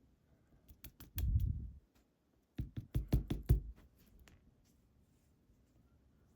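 Lock being tapped and handled to dump out pin stacks: sharp small metal clicks of pins and springs with soft knocks, in two short clusters about a second in and about three seconds in, then a few faint ticks.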